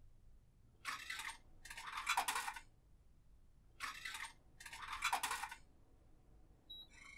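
Rustling, scrubbing noises in two pairs of short bursts, the second pair about three seconds after the first.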